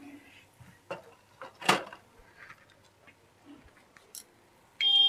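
Cumin seeds and a pinch of asafoetida crackling in hot oil in a kadhai, with scattered small pops. Near the end a loud, steady high-pitched tone suddenly cuts in.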